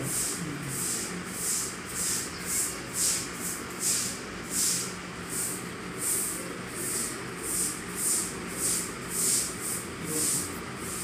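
A fine-tipped pen scratching across lined paper while writing cursive letters: a short hiss with each stroke, about two a second. A faint steady low hum sits underneath.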